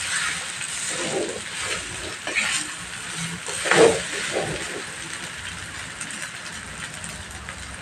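Rice frying in a hot wok with a steady sizzle, while a spatula stirs and scrapes it against the pan in repeated strokes. The loudest scrape comes about four seconds in.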